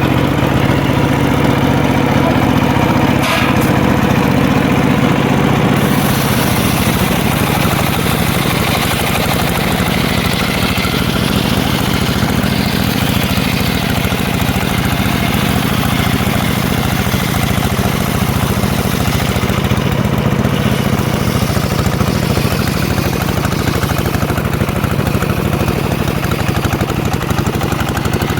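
Engine of a home-built circular sawmill running steadily, with one sharp knock about three seconds in and a hissier, harsher sound joining about six seconds in.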